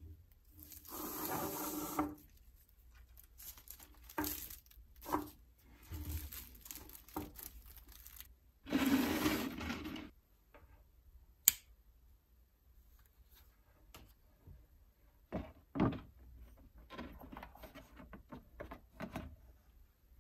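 Handling noises from setting up a UV bath: clear plastic film and a thin curled reflective sheet rustling and crinkling in two long bursts, with scattered light taps on a wooden tabletop. There is one sharp click past the halfway point and two knocks a few seconds later.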